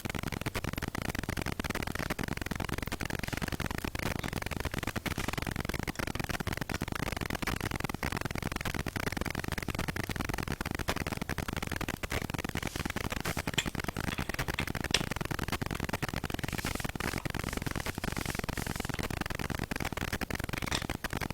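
Steady even hiss, with a few faint clicks about two-thirds of the way through and near the end.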